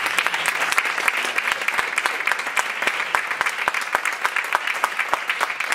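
Audience applauding, many people clapping together at a steady level.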